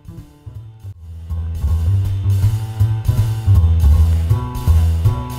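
Background music with a bass line and drums, quiet at first, then swelling louder about a second and a half in.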